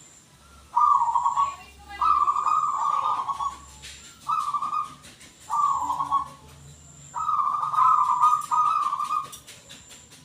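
Zebra dove (perkutut) cooing: about six phrases of coos, each lasting half a second to a second and a half, with short pauses between them.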